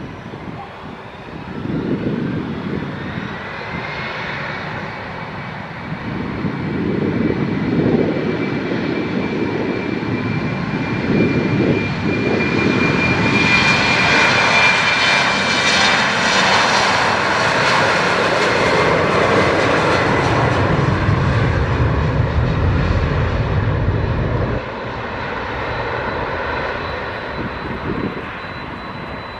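Jet airliner's engines passing close by. A high whine rises in the first few seconds and then holds, and the noise builds to a loud peak midway. A low rumble follows and drops away suddenly a few seconds before the end.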